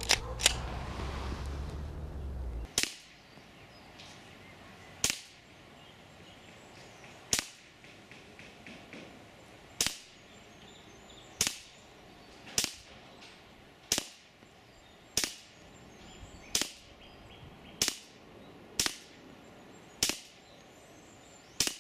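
Swiss Arms P1911 4.5 mm CO2 blowback BB pistol fired semi-auto at a paper target, one sharp crack every one to two seconds, about fifteen shots in all.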